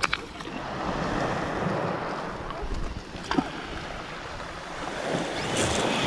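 Small sea waves breaking and washing up over a pebble beach, swelling and ebbing, with a couple of short clicks and some wind on the microphone.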